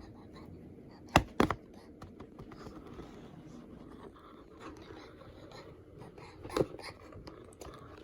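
Handling noises: faint scratching and rustling, with two sharp knocks close together about a second in and another knock near the end.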